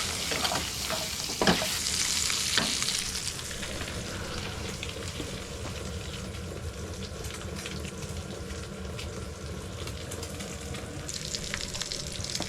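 Bacon frying and sizzling in a pan, a steady crackling hiss with a low steady hum beneath it and a few sharp ticks in the first two seconds.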